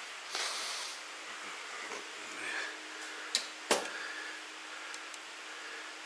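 Workshop handling noises: a brief rustle about half a second in, then two sharp metallic knocks in quick succession just over three seconds in, over a steady faint hum.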